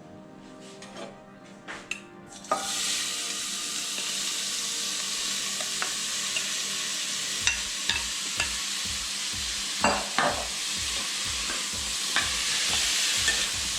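Chopped onions tipped into hot ghee in a pressure cooker, breaking into a loud, steady sizzle about two and a half seconds in. From about halfway on they are stirred, with regular knocks and clicks against the pot over the frying.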